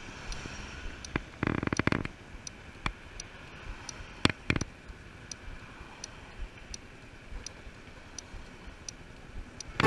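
Honda Cross Cub 110 standing at a junction at a faint idle, with a soft, regular ticking about twice a second. A short buzzing rattle comes about a second and a half in, and two sharp clicks follow a little after four seconds.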